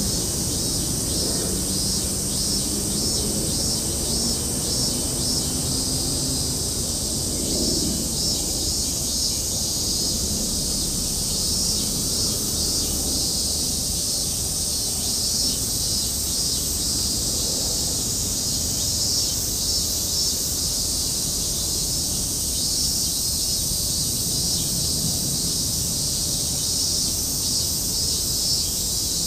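Steady outdoor ambience: insects chirring in a continuous high, rapidly pulsing drone, over a low rumble. A faint low hum fades out in the first few seconds.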